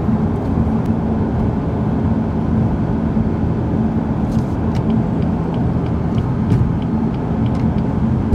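BMW F80 M3's twin-turbo inline-six cruising steadily at about 3,000 rpm at highway speed, heard inside the cabin as a low, even drone mixed with road and tyre noise.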